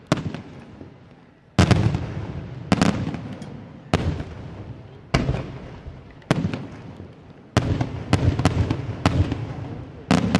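Aerial fireworks shells bursting one after another: about ten sharp bangs roughly a second apart, some in quick pairs, each trailing off in a fading echo.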